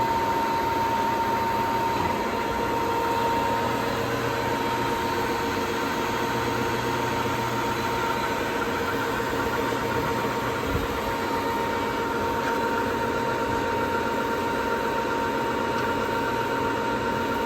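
Kingston HR3000 engine lathe's spindle running steadily in high range at 426 RPM, a steady gear whine over the hum of the headstock drive.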